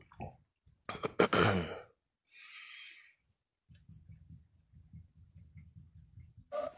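A man's short voiced sound, then a breathy sigh about two and a half seconds in, followed by a faint low hum.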